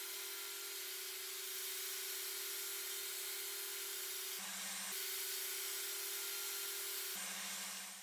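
Table saw running while passes are made to cut a 9 mm rebate in wood strips: a steady hum over a hiss. The hum drops to a lower pitch briefly about four and a half seconds in, and again near the end.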